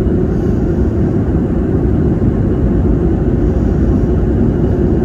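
Airliner cabin noise at cruise altitude: a steady, even rush of engine and airflow noise, mostly low in pitch, heard from inside the passenger cabin.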